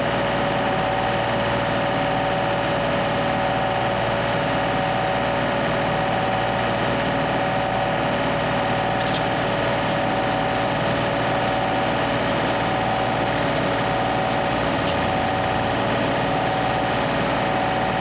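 Vacuum excavator running steadily: the drone of the machine's engine and blower drawing air through the large suction hose and digging tube, with a steady whine on top.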